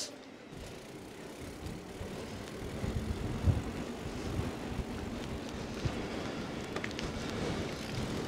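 Uneven low rumble of wind on the microphone, growing a little louder, with faint tyre noise and a few light clicks from two bicycles coming up a wet tarmac lane in the second half.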